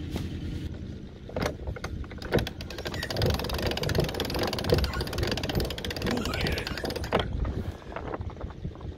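Sailboat cockpit winch clicking rapidly as it is cranked to hoist the genoa up the roller-furler foil, with a few sharp knocks and a low rumble of wind on the microphone.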